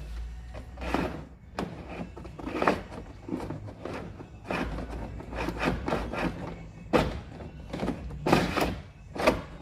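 Irregular knocks, thuds and rustling as a cable is pulled and worked through a tight gap in a Mercedes Vito van's bodywork, with a few sharper knocks near the end.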